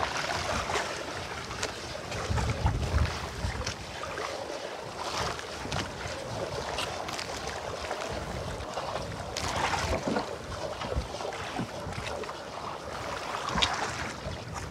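Water lapping and sloshing against a small boat's hull at sea, with wind buffeting the microphone, heaviest in a gust a couple of seconds in. A few sharp knocks stand out.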